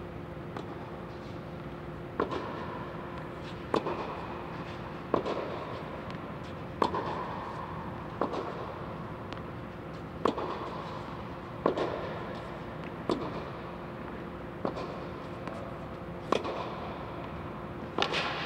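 Tennis rally: sharp racket-on-ball strikes, about one every second and a half, each trailed by an echo in the inflated air dome. A steady low hum runs underneath.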